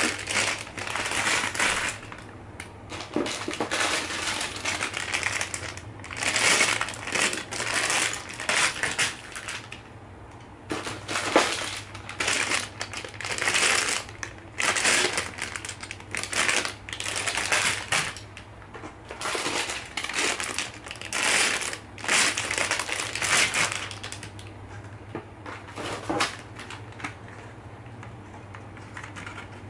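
Loose plastic LEGO bricks rattling and clattering inside sealed plastic bags as the bags are picked up and handled, with the bag film crinkling, in repeated bursts of a second or two. The handling sounds thin out in the last few seconds.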